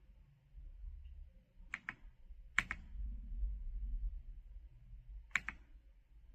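Mechanical keyboard keys struck three separate times, spaced out, each a sharp clack followed closely by a second lighter click. Under them is a faint low rumble.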